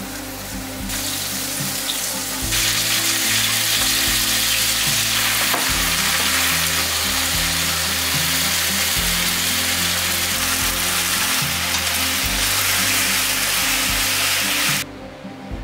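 Food frying in olive oil in a frying pan: garlic, then vegetables and pasta sizzling as they are stirred and tossed. The sizzle gets much louder about two and a half seconds in and cuts off suddenly near the end. Soft background music plays underneath.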